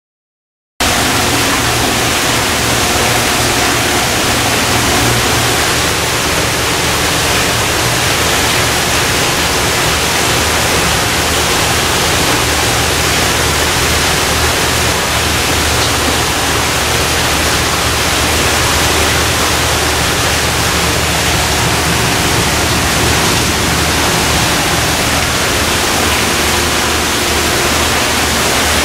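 Steady rushing water in the otter exhibit: a constant even hiss with a faint low hum underneath. It starts abruptly just under a second in, after silence.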